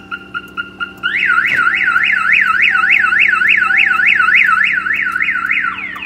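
Viper car alarm siren going off after being triggered while armed, cycling through its tones. A rapid pulsing beep gives way about a second in to a fast up-and-down warble, and near the end it switches to repeated falling sweeps.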